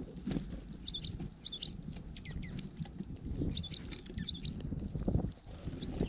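Small songbirds at a seed feeder, American goldfinches and a dark-eyed junco, giving short high chirps in quick clusters about a second in and again near the middle, with scattered clicks of pecking and shuffling in the seed. A low wind rumble on the microphone runs underneath.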